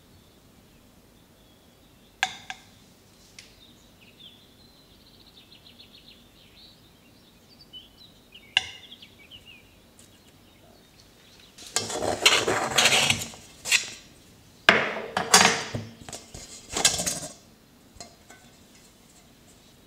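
Kitchen utensils against dishes: a couple of sharp clinks, then four loud, rough, second-long scraping passes in the second half.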